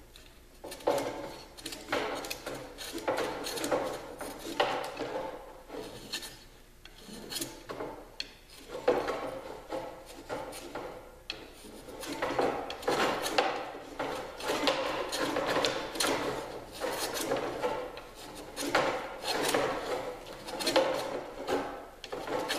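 Small hand plane shaving the edge of a thin wooden strip in a steady run of short rasping strokes, truing the rough-cut edge for a close fit.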